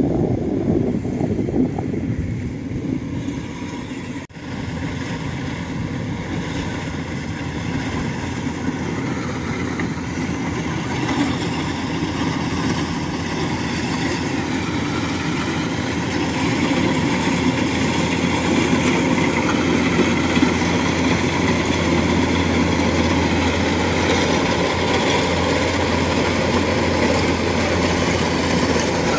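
Engine of a heavy towing vehicle hauling stacked combine harvesters, running steadily. It dips briefly about four seconds in, then grows louder with a steady low hum from about halfway.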